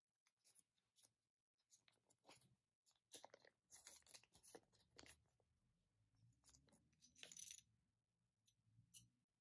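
Thin folded paper leaflet from a Kinder Joy capsule being unfolded and handled: soft crinkling and rustling with small crackling clicks, loudest about three seconds in and again about seven seconds in.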